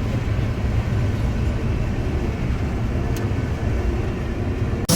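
Combine harvester engine running steadily with a low hum. Just before the end it changes abruptly to a louder, harsher machine noise.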